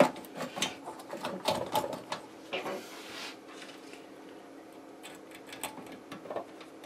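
Clicks and rattles of a cable plug being pushed into an input jack on a PA amplifier's front panel, with the leads being handled. A short rustle comes about three seconds in, then a few faint clicks near the end.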